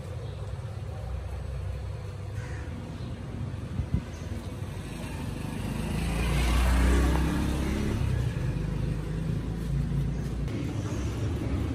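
Street traffic noise, with a vehicle passing close and getting loudest about six to seven seconds in.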